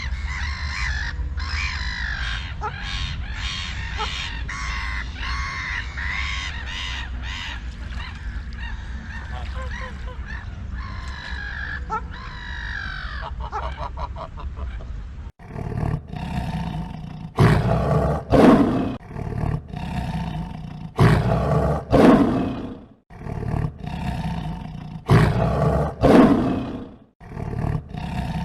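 A flock of birds calling over one another with many overlapping honking calls. About halfway through it switches abruptly to a lion roaring: a series of loud, deep calls, some in pairs, about a second or two apart.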